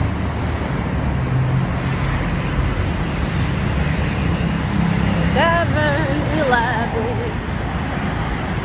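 Street traffic: a steady wash of road noise, with a vehicle engine humming low through the first half. A short stretch of a voice comes a little past halfway.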